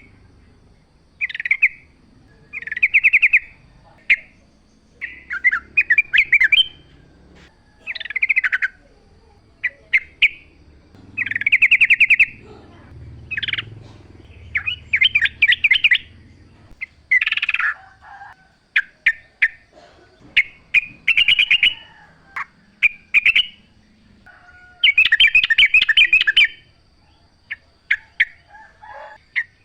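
Yellow-vented bulbul singing: short, bubbly, liquid warbled phrases repeated every second or two with brief pauses between them.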